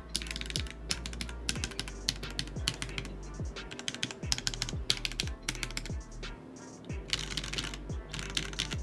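Fast, continuous typing on a custom MKC75 mechanical keyboard fitted with Gateron KS-3 switches in full-nylon housings with NK Silk stems, a deep-sounding stream of keystrokes that thins out briefly about two-thirds of the way through. Background music with a low, repeating bass beat plays underneath.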